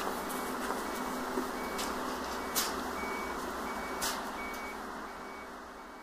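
Steady outdoor street noise: a dense hiss with a faint steady tone, two or three sharp clicks, and a fade-out near the end.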